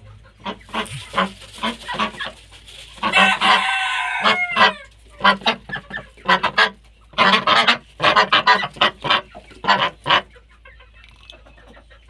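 Domestic fowl calling: a rapid series of short, harsh calls in bursts, with one longer call wavering in pitch about three seconds in, dying down near the end.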